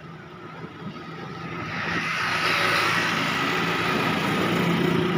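A motor vehicle's engine runs steadily and gets louder from about a second and a half in as it draws close, over street traffic.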